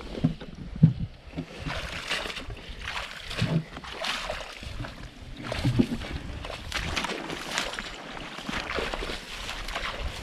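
Footsteps squelching and swishing through wet grass and shallow water, with irregular rustles and a few heavier splashy thuds.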